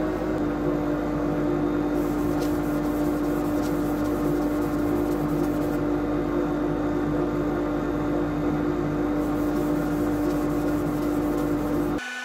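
Steady hum of workshop machinery running at an even pitch, with a few faint light clicks; the sound cuts off abruptly near the end.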